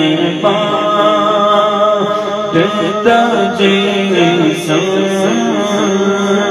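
Male voice singing an Urdu naat into a microphone with no instruments, drawing out long held, wavering notes. A low steady drone holds underneath the melody.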